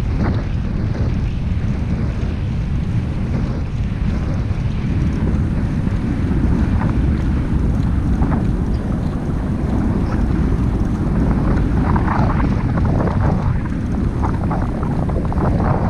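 Wind buffeting a GoPro's microphone as it moves along the track: a loud, steady low rumble.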